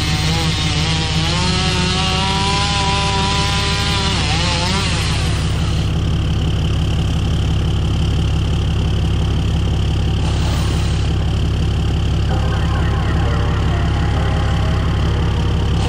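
An engine running with a steady low drone. For the first five seconds or so its pitch wavers up and down, as if under changing load, then it settles to an even run with a thin high whine.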